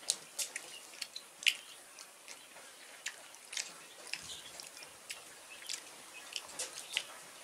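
People eating rice and curry by hand from banana leaves: chewing and fingers working the wet food, heard as irregular short, wet clicks and ticks.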